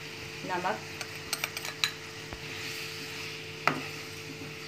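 Chicken and ground spices sizzling in hot oil in a frying pan while a spoon stirs and clicks against the pan, with a quick run of taps about a second and a half in and a sharper one near the end. A steady low hum runs underneath.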